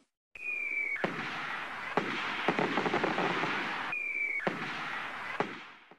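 Fireworks sound effect: a short high whistle about half a second in, then sharp bangs over dense crackling. A second whistle comes about four seconds in, followed by more crackle and a last bang before it fades out near the end.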